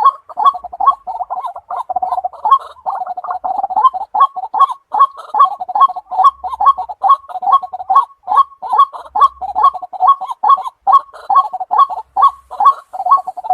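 White-breasted waterhen calling over and over in a fast, even rhythm of about three notes a second, kept up without a break.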